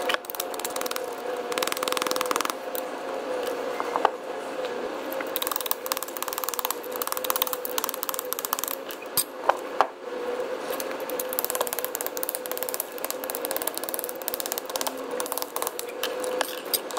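Metal tools clicking, scraping and knocking against the loose copper segments of a DC generator's broken commutator as they are pried off the armature, with a few sharper knocks. A steady hum and hiss run underneath.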